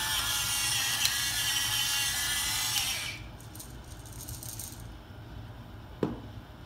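Electric pepper mill whirring as its motor grinds black peppercorns, stopping about three seconds in. A single knock near the end as the mill is set down on the counter.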